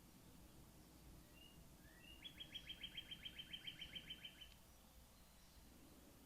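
A small songbird, heard faintly, gives two short chirps and then one rapid trill of about a dozen quick notes, roughly six a second, lasting a couple of seconds. Otherwise faint room tone.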